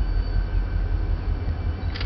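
Low, steady rumble of Pan Am Railways' diesel local freight ED1 approaching, heard from inside a car.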